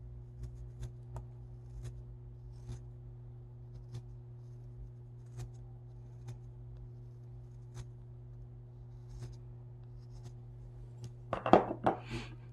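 Carving knife paring thin shavings off a small block of wood, light crisp cuts about once a second over a steady low hum. Near the end a louder brief clatter as the knife is set down on the wooden workbench.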